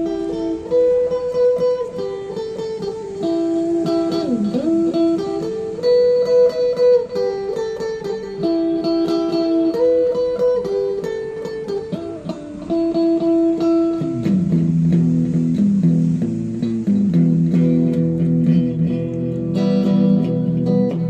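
Instrumental background music: a melody of held notes over chords, with a lower part coming in about two-thirds of the way through.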